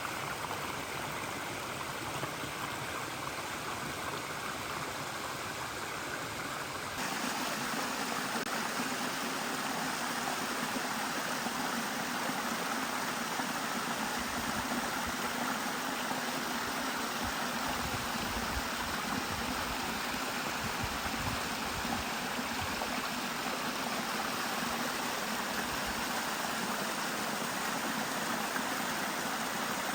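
Mountain stream running, a steady rush of water that steps up louder about seven seconds in.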